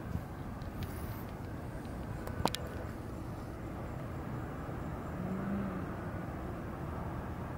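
Steady low outdoor background rumble with no clear single source, and a brief cluster of sharp clicks about two and a half seconds in.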